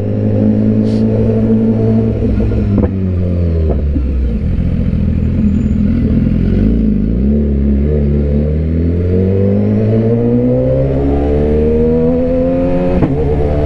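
BMW S1000RR inline-four engine. Its note falls as the bike slows to squeeze between stopped cars, then rises steadily from about eight seconds in as it accelerates away.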